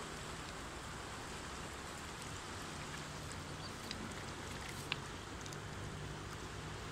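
Fast-flowing Swat River rushing past the bank, a steady hiss of moving water, with one brief click about five seconds in.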